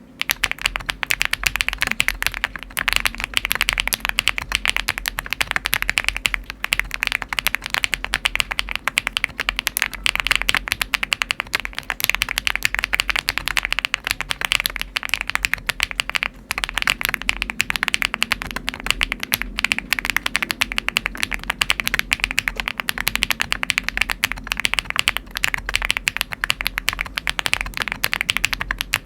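Continuous fast typing on a Cupid 65 custom mechanical keyboard with HMX Sillyworks Hyacinth V2U switches and Frontier Magic Beads Light keycaps: a dense, steady stream of key clicks that starts abruptly at the outset.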